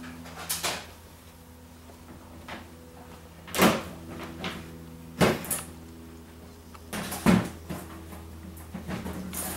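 Several dull knocks on a car floor pan covered in foil-faced sound-deadening mat, coming a second or two apart, over a steady low hum.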